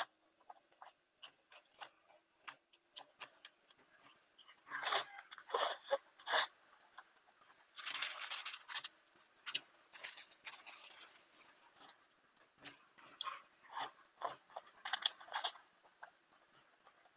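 A person chewing chicken feet close to the microphone: wet smacks and clicks in irregular bursts, loudest around five to six seconds in, around eight seconds in, and again around thirteen to fifteen seconds in.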